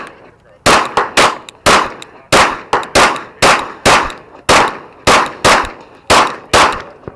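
A semi-automatic pistol firing a rapid string of about a dozen shots, roughly two a second at uneven spacing, each shot trailing off in a short echo.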